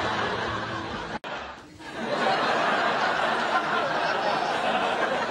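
Sitcom studio audience laughing. The laughter breaks off abruptly about a second in, then a second round of audience laughter starts about two seconds in.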